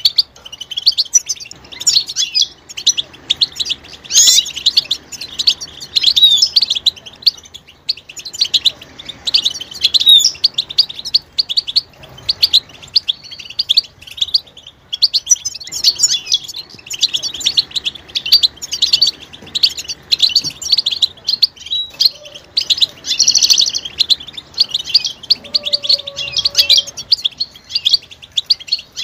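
European goldfinch twittering: quick runs of high, rapid chirping call notes, broken by short pauses.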